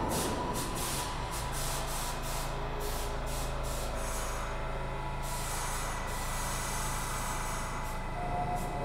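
Air hissing in a string of short bursts from an R68 subway train's brakes as the train comes to a stop, over a steady low hum from the car. The bursts thin out about halfway through.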